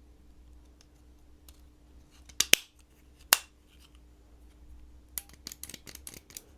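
Sharp clicks and snaps of hard parts being handled during repair work on an electric wood chipper: two loud clicks about two and a half and three and a half seconds in, then a quick run of lighter clicks near the end.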